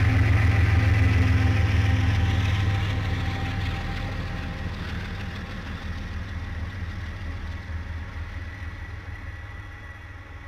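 Diesel locomotive engine running loud and close with a deep hum, then fading steadily as the locomotive moves away and the passenger cars it hauls roll past.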